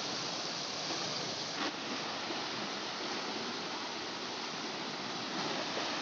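Steady rush of water from a swollen, muddy stream pouring over a small concrete weir.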